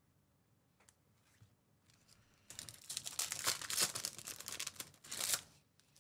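Foil trading-card pack wrappers crinkling and tearing open in the hands, a loud stretch of about three seconds starting midway, after a few light handling clicks.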